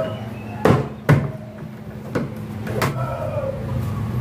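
Plastic wardrobe cabinet being knocked and clicked as its parts are fitted: about four sharp hard-plastic knocks, two close together in the first second and two more around two and three seconds in.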